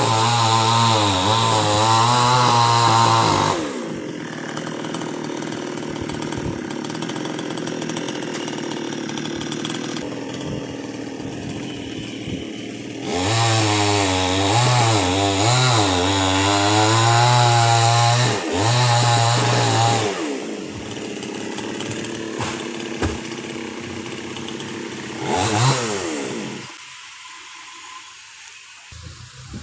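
Two-stroke chainsaw revving hard, dropping back to a lower, quieter running, revving hard again for several seconds, then dying down near the end.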